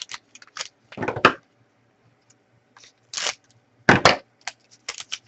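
Trading card packaging being handled and torn open: a series of short rustles and snaps, the loudest about a second in and again near four seconds.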